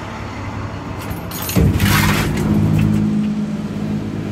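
Heating-oil delivery truck's machinery: a short hiss with metallic clatter, then about a second and a half in a steady low drone starts suddenly and keeps running.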